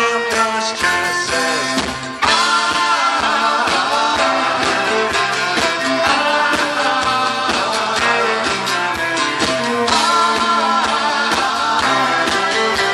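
Folk-rock band playing live, a mostly instrumental passage with guitar, growing louder and fuller about two seconds in. The recording's sound is poor, from an overloaded camera microphone.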